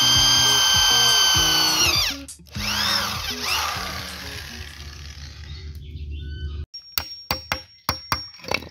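Electric drill running at full speed as it bores through a bamboo handle, stopping about two seconds in, then spinning up and winding down again with its pitch rising and falling. Near the end, a quick series of sharp hammer taps on the bolts fitted through the handle.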